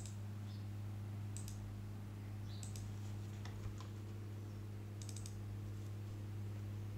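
A few short computer-mouse clicks, coming in small clusters a second or more apart, over a steady low hum.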